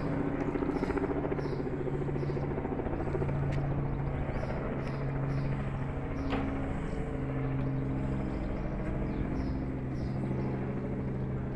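An engine running steadily with a low hum whose pitch shifts slightly now and then, with faint high chirps repeating about twice a second above it.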